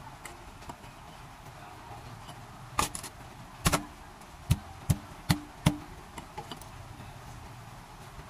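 A live eel being struck with a blunt black object in a stainless steel sink to kill it: about eight sharp, dull blows in quick runs from about three to six seconds in, some leaving a short ringing tone.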